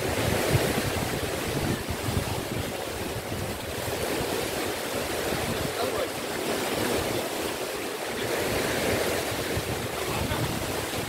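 Sea waves washing on the shore, swelling and easing every few seconds, with wind buffeting the microphone in a low rumble.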